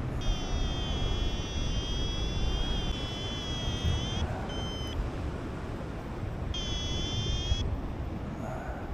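Paragliding variometer giving long steady electronic tones with a short beep between them, the sink alarm of a glider losing height, over wind rushing on the microphone.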